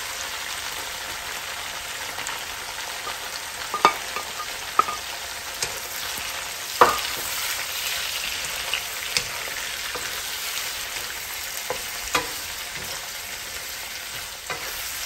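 Chicken innards stir-frying in a hot pan: a steady sizzle with a handful of sharp clinks of the spatula against the pan, the loudest about seven seconds in.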